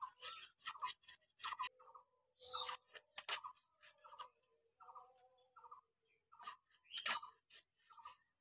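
A snakehead fish being cut up by hand on a bonti floor blade: irregular sharp scrapes and knocks of flesh and bone against the blade. Short repeated bird calls sound in the background.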